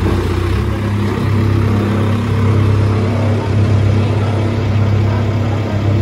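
Backhoe loader's diesel engine idling steadily, with an even low drone.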